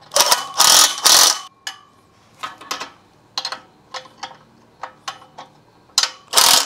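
Cordless impact wrench tightening the nuts and bolts of a steel rack, running in bursts: three long bursts at the start, a run of short trigger taps through the middle, then two more long bursts near the end.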